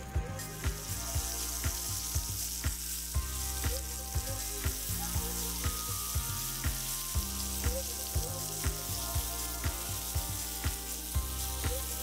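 Flour-dredged rockfish fillets sizzling steadily as they pan-fry in hot fat in a nonstick frying pan. Background music with a steady beat plays underneath.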